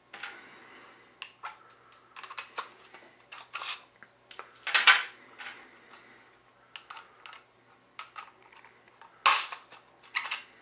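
Irregular sharp clicks and light metallic clinks of empty .50 AE brass cases being handled and stood on a tray, and of a Hornady hand priming tool seating primers into them. The loudest clicks come about five and nine seconds in.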